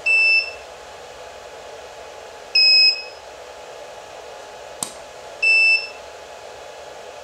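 Elinchrom D-Lite 4 studio strobes giving short high-pitched ready beeps, three in all a few seconds apart, each about half a second long, signalling that a flash has recharged. A single sharp click comes just before the third beep.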